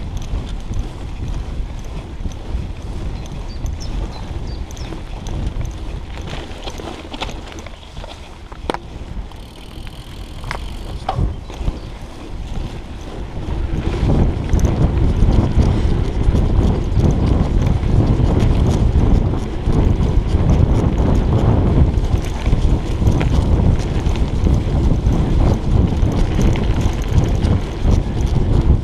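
Mountain bike riding: tyre rolling noise and bike rattle, with wind on a chest-mounted GoPro's microphone. It grows louder about halfway through, as the bike moves from grass onto a bumpy dirt forest trail.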